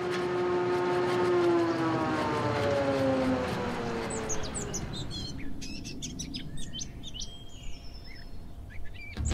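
Logo intro sound: a drone of several tones that falls slowly in pitch and fades over the first few seconds, followed by birds chirping.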